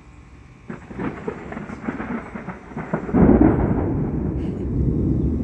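Thunder from a big lightning strike: crackling starts about a second in and grows into a loud, low rumble from about three seconds in that carries on.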